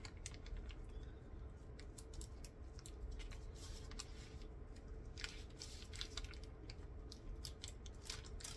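Faint, scattered crinkling and light clicks of paper being handled while a frosting-filled cake roll is rolled up, with a denser run of crinkles about five seconds in and again near the end.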